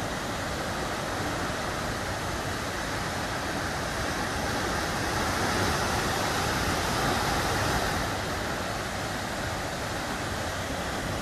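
Waterfall running high after rain, a steady rushing of falling water that grows a little louder in the middle and eases again.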